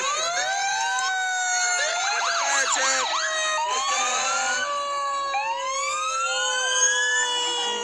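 Several fire truck sirens sounding at once, their pitches overlapping as each slowly rises and falls, with a faster up-and-down warble a couple of seconds in.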